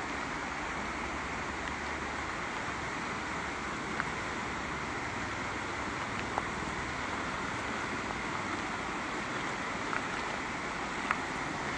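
Steady rush of a fast-flowing mountain river, with a few faint ticks.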